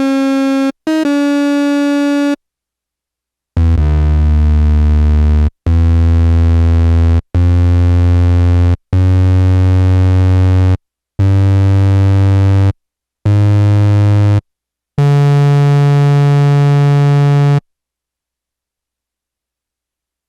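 Yamaha SY-2 vintage analog synthesizer playing single sustained notes, one at a time, each starting and stopping abruptly: two higher notes, then seven lower, buzzier notes of a second or two each. The synth is out of tune.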